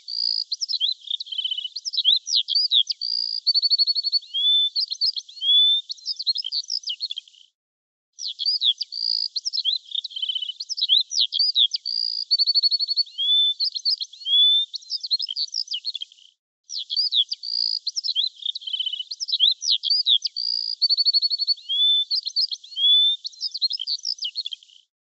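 Songbird chirping, with quick rising and falling notes and a fast trill. The same stretch of song plays three times over, broken by short pauses.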